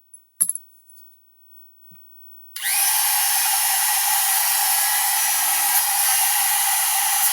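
A few light handling clicks, then a Dremel rotary tool switched on about two and a half seconds in: it spins up quickly to a steady high whine and grinds at plastic.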